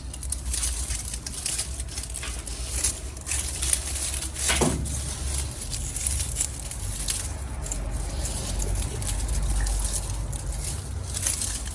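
Rustling of leaves and stems with scattered light snaps and clicks as tomatoes are picked by hand from the plants, over a steady low rumble.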